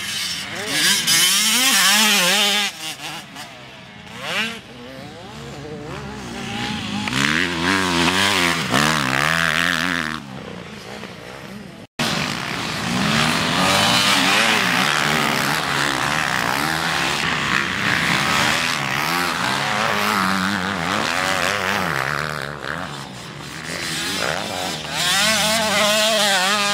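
Motocross dirt bike engines revving hard as the bikes race past, the pitch rising and falling over and over with the throttle. A brief sudden dropout about twelve seconds in.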